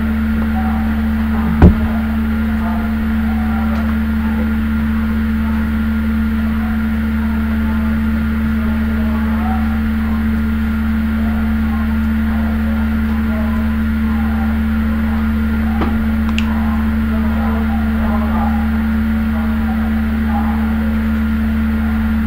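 Steady electrical hum from the recording setup, a low drone with a thin higher whine over it, broken once by a sharp loud click about one and a half seconds in.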